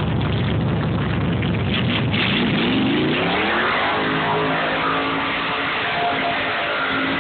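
Chevrolet Camaro's small-block V8 running as the car passes close, then revving up from about two seconds in and held at high revs as it spins its rear wheels on dirt in a donut.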